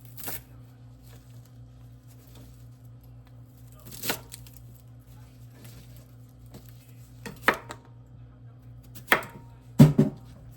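Knife knocking on a cutting board during kitchen prep: a few separate sharp strikes a few seconds apart, the loudest a double knock near the end, over a steady low hum.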